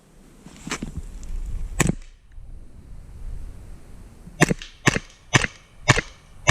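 Airsoft pistols firing: two sharp shots about a second apart, then after a pause a quick string of five shots roughly half a second apart.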